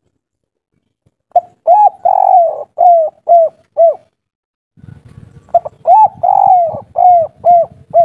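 Spotted dove (derkuku) singing its cooing song twice: two short coos, one long drawn-out coo, then three short 'kuk' notes, the 'kuk 3' song type. A low rumbling noise comes in under the second phrase.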